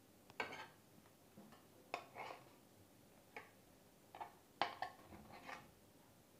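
A metal spoon scraping and clinking against an aluminium idli mould plate and a serving plate as steamed idlis are prised out and lifted off: a handful of short, light scrapes and clinks, the sharpest a little past halfway.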